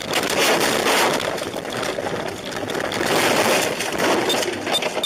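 Car crashing off a snowy road through roadside brush and reeds, heard from inside the car: a loud continuous rush of branches, snow and slush scraping and hitting the body and windscreen, with a few sharp knocks near the end.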